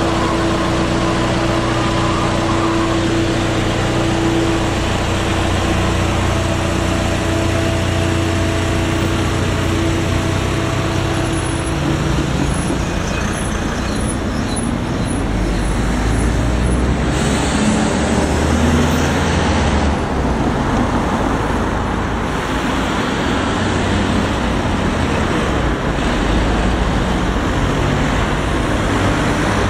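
Road traffic driving across a railway level crossing as the barriers lift: cars and a van pulling away and passing close by, steady engine and tyre noise. A steady engine hum from idling vehicles gives way after about twelve seconds to louder, fuller rumbles as vehicles drive past.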